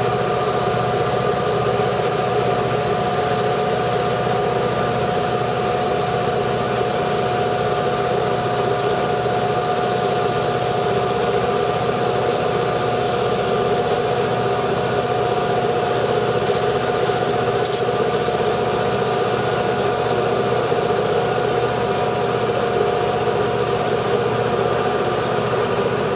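EMD GP38 diesel locomotives hauling a freight train up a grade, a loud steady engine drone with a steady whine over it, as the freight cars roll slowly through the road crossing.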